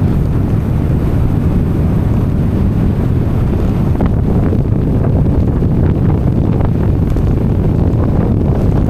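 Strong wind blowing across the microphone: a loud, steady low rumble.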